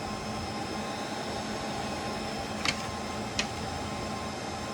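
Steady fan-like whir of background air-handling or equipment cooling, with a faint steady hum underneath. Two short sharp clicks come a little past the middle, less than a second apart.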